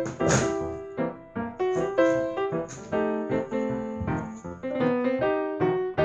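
Background piano music, a steady run of notes and chords.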